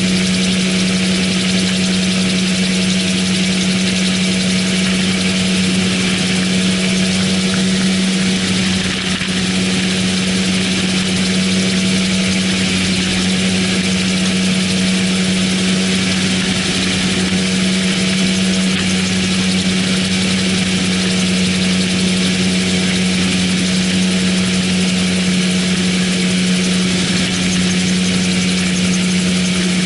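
AutoGyro MTOsport gyroplane in cruise flight: its pusher engine and propeller drone steadily at one even pitch, with a constant rush of wind across the open cockpit.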